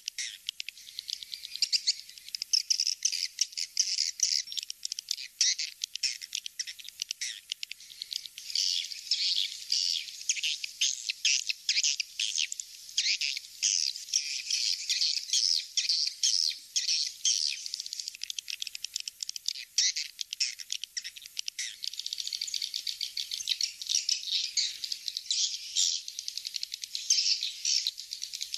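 Swiftlet lure call: dense, unbroken high-pitched twittering of edible-nest swiftlets, rapid chirps overlapping one another. It is a call track made to draw walet swiftlets into a bird house to roost and nest.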